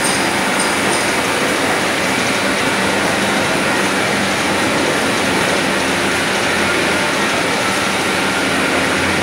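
Steady, loud din of a machine shop floor, with many gear-cutting machines running at once and a faint steady hum among the noise.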